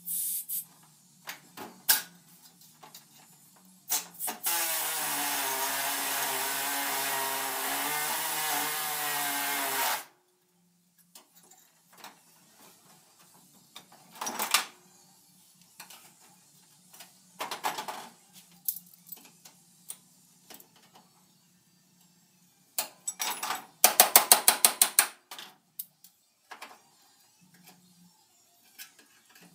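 Pneumatic tool on a compressed-air hose running steadily for about six seconds, its pitch wavering slightly. Scattered clinks and knocks of metal tools being handled follow, and near the end a brief rapid rattle of about ten strokes a second.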